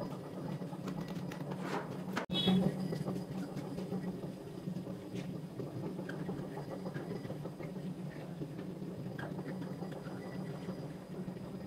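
Steady low machine hum with faint scattered ticks and rustles. It breaks off briefly about two seconds in, then a short louder knock with a brief high ring follows.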